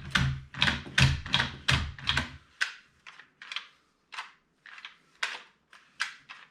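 Mag Pump 9mm magazine loader being worked, each stroke a sharp mechanical click as it pushes rounds into the magazine. About three clicks a second at first, then slower, fainter clicks after about two and a half seconds.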